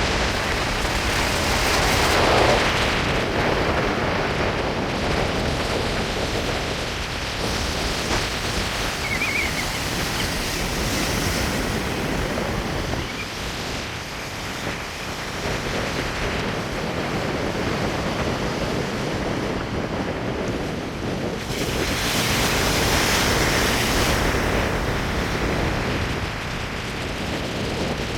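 Storm wind buffeting the microphone over ocean surf breaking below, a steady rushing noise with a heavy low rumble. It swells with a gust about two seconds in and again about three-quarters of the way through.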